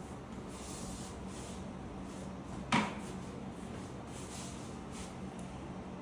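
A single sharp click about three seconds in, over a steady low hum.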